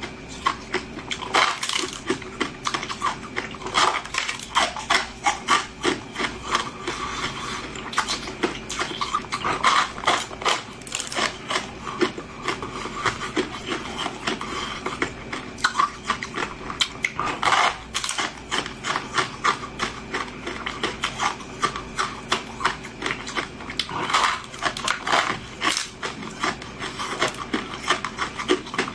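Close-miked crunching of a ball of packed crushed ice being bitten and chewed: a dense run of crisp crackles with a louder crunch every few seconds.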